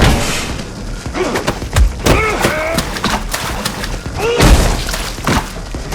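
Fight sound effects: a series of heavy punch and body-blow thuds, with short grunts of effort between the hits.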